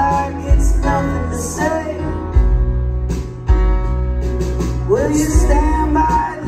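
Live band music with a male lead singer singing over keyboard and band accompaniment.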